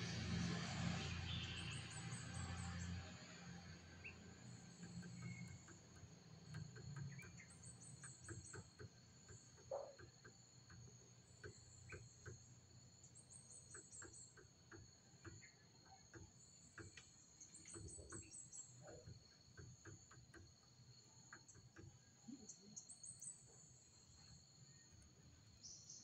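Faint, steady high-pitched insect chirring, with a short trill repeating every few seconds, and scattered soft ticks and taps. A low hum fades out about three seconds in.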